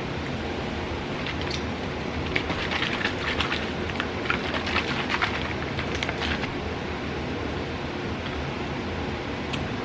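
Plastic packaging crinkling and rustling in irregular crackly bursts for a few seconds, over a steady background hiss.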